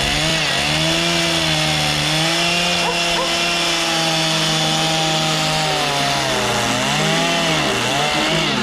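Two-stroke chainsaw running at high revs while cutting wood, its engine note dipping as it loads in the cut about a second in and again near the end.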